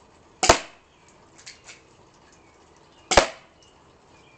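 Airsoft pistol fired twice, about two and a half seconds apart, each shot a sharp crack. A couple of faint ticks follow the first shot.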